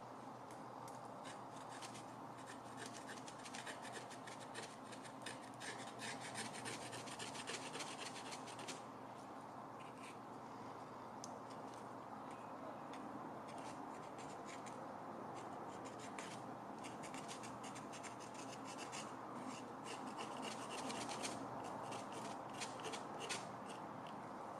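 A pointed wooden stick scraping stripped old paint off the metal base of a Mitutoyo 7003 stand, in quick scratchy strokes. The scraping goes lighter from about nine to fifteen seconds in, then picks up again.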